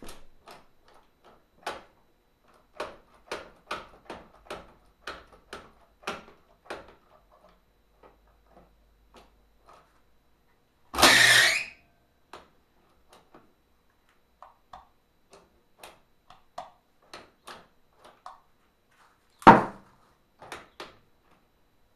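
Irregular clicks and knocks of metal parts and hand tools being handled while working on a sewing machine. A loud, noisy burst lasting under a second comes about halfway through, and one sharp, loud knock comes near the end.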